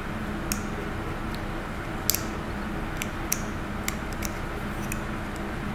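Scalpel blade cutting and scraping a silicone putty impression, making small, sharp, irregular clicks and ticks, about two or three a second, over a steady low hum.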